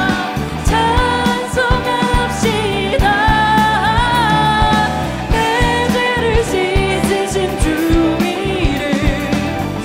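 Live contemporary Korean worship music: a woman sings the lead melody with vibrato, joined by a group of backing singers, over a full band of bass guitar, piano, keyboard and drums.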